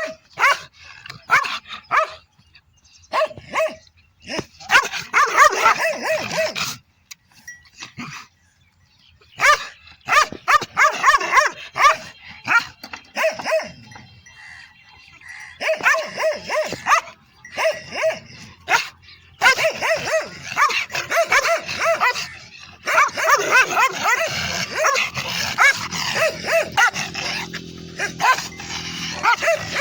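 Dog barking in rapid runs of short barks, broken by brief pauses.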